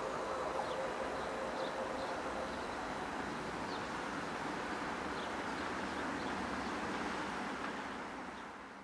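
A passenger train receding into the distance: a steady rumble, its hum dying away in the first couple of seconds, with a few short bird chirps over it. The sound fades out near the end.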